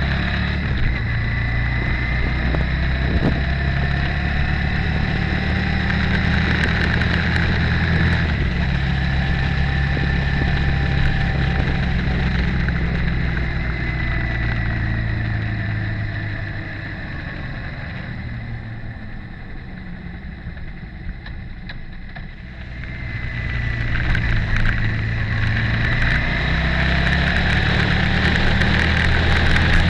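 Motorcycle engine running on the move, heard from a camera mounted on the bike. About halfway through it eases off and goes quieter for several seconds, then picks up again as the throttle opens.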